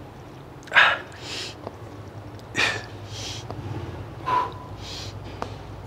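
A man breathing hard through a cable rope triceps press-down: three sharp, hissing exhalations, one per rep about every two seconds, each followed by a quick breath in, with a few faint clicks between.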